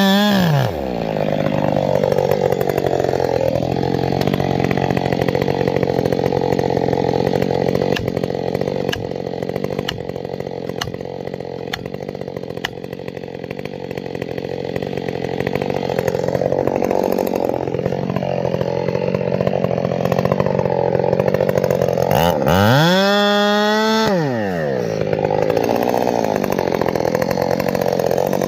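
Husqvarna 572XP two-stroke chainsaw running hard: its pitch drops sharply at the start and stays lower and wavering as the saw works under load, then it revs up high for about two seconds near the end before bogging back down.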